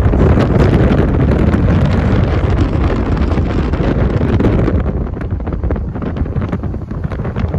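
Wind buffeting the microphone hard: a dense, ragged low rumble that eases somewhat over the last couple of seconds.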